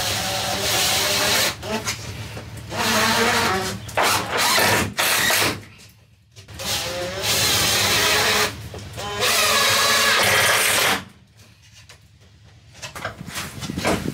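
Cordless drill-driver running in several short bursts as it drives a bolt through a wooden batten into the van's sheet-metal wall; the motor's pitch shifts under load, and the longest run, about four seconds, comes in the second half.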